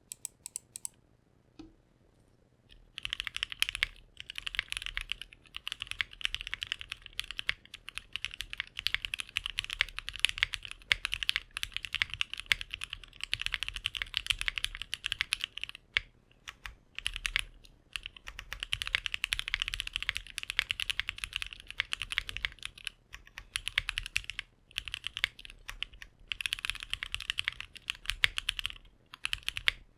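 Typing on a Bakeneko 60 custom mechanical keyboard: Mode Reflex linear switches lubed with Krytox 205g0, an FR4 plate in an O-ring mount, and GMK ABS keycaps. Fast, continuous keystrokes start about three seconds in, with a few short pauses.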